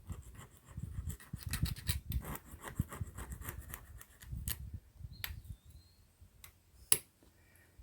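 Scraping and clicking of tools and metal parts while a backhoe hydraulic control valve is being taken apart, busiest in the first few seconds, then a few separate clicks with one sharp click near seven seconds.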